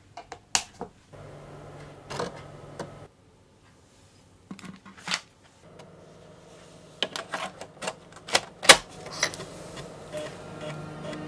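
Commodore Amiga 1200 and its 3.5-inch floppy drive being handled and run: sharp mechanical clicks and knocks as a floppy disk goes into the drive, over a low steady hum while the drive runs.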